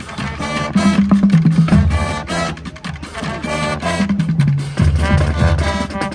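Marching band playing loudly: brass on held and moving chords over a low brass bass line, with drums keeping a steady beat.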